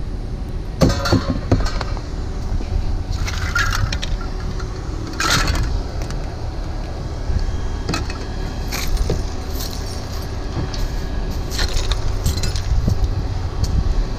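Pieces of scrap metal clinking and clattering now and then as they are handled and unloaded, over the steady low rumble of a vehicle.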